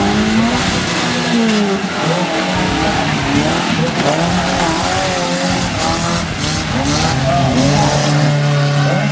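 Suzuki Jimny's engine revving up and down under load as it drives over a muddy off-road track, its pitch rising and falling.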